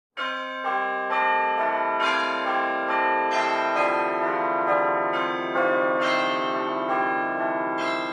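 Bells pealing: many overlapping strikes about twice a second, each ringing on under the next, starting suddenly out of silence.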